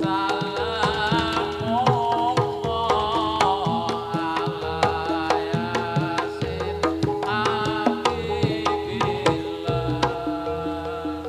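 Live Javanese gamelan music for a jathilan dance: kendang hand-drum strokes over repeating metallophone notes, with a wavering melody above. Near the end the drumming thins, leaving the steady metallophone pattern.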